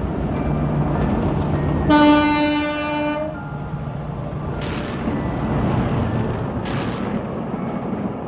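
Cartoon steam-train sound effects: a steady rumble of the locomotive running on the rails, with one blast of its whistle lasting about a second, about two seconds in. Two short whooshes follow later.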